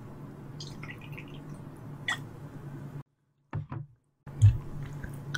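Soju poured from a glass bottle into a shot glass: soft trickling, a sharp glass clink about two seconds in, then the sound drops out for about a second before a loud low thump as the bottle is set down on the table near the end.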